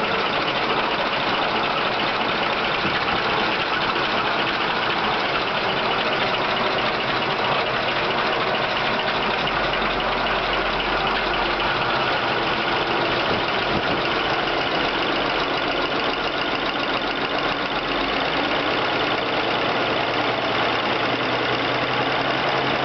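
1953 American LaFrance J-series V12 with twin Zenith carburettors idling steadily, its top end freshly overhauled with a full valve job.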